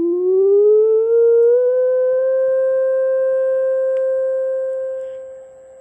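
Sine-wave test tone from a sound generator played through a power amplifier and studio monitor speakers. It glides up in pitch over the first two seconds to a steady 500 hertz, holds there, then drops sharply in volume near the end.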